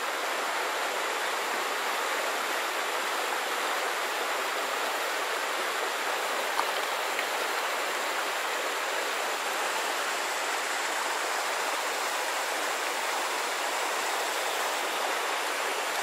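Steady rush of shallow stream water running over rocks and a small weir. One brief soft knock about six and a half seconds in.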